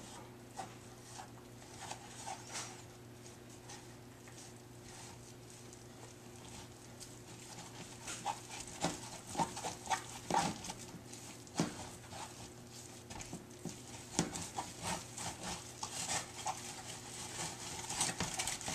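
Plastic spatula stirring and scraping a thick flour-and-cornmeal paste in a plastic tub, as irregular scrapes and taps that come much more often from about eight seconds in.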